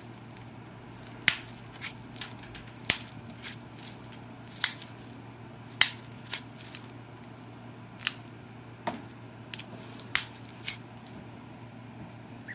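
A copper-tipped pressure flaker pops pressure flakes off the abraded edge of a stone biface: a series of sharp snapping clicks at irregular intervals of one to two seconds, about six loud ones with fainter ones between.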